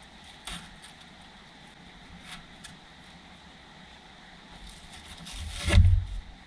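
Handling noise as a grab handle's fabric strap is wrapped and fastened around a Jeep roll bar: a few faint clicks and rustles, then a rustle that builds to a loud bump near the end.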